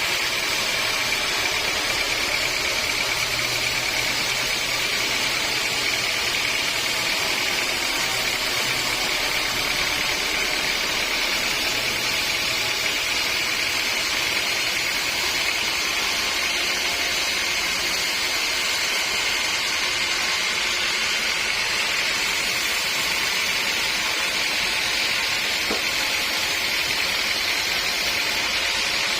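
Sawmill saw running steadily, an even noise with a constant high whine.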